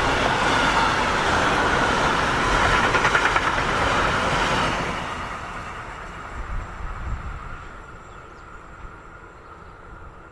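Freight train of lorry semi-trailers on pocket wagons rolling past on the rails, a steady loud rumble. The last wagons go by about five seconds in and the sound fades away as the train recedes.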